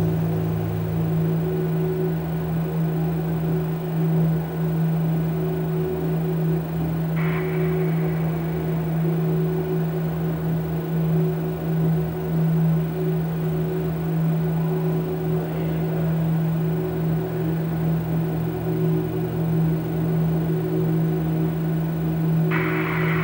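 Steady electronic drone from an audiovisual sound-art piece: a low hum with a fainter tone above it over a rough noisy bed. A brief hiss comes about seven seconds in, and a stronger one near the end.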